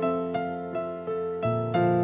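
Background music: a slow piano melody with notes struck about three times a second, each fading away, and a deeper bass note coming in about one and a half seconds in.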